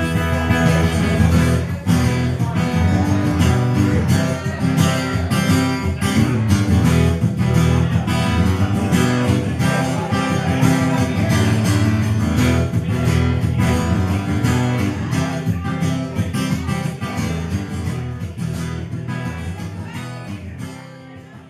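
Steel-string acoustic guitar strummed in a steady rhythm, an instrumental passage with no singing; the playing dies away over the last couple of seconds.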